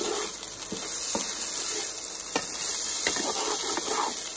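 Chicken pieces sizzling in butter and olive oil in a nonstick frying pan, with a wooden spatula stirring them and making several short scrapes and taps against the pan.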